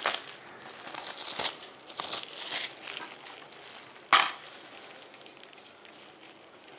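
Clear plastic wrapping crinkling and tearing as it is pulled off a DVD case, in a run of short rustling bursts. A little over four seconds in, one sharp loud snap as the plastic DVD case's latch is popped open.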